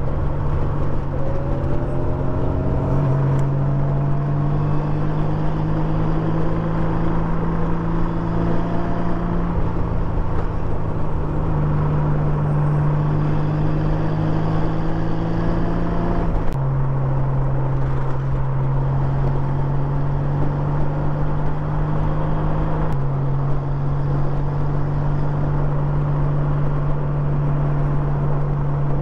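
Honda Gold Wing motorcycle engine running steadily under way, with wind and road noise. Its note climbs during the first several seconds as the bike picks up speed, then drops abruptly a little over halfway through and again about three-quarters through.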